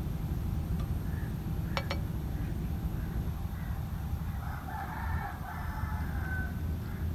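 A rooster crows once, a call of about two seconds starting past the middle and ending on a short held note. Two sharp clicks come about two seconds in, over a steady low rumble.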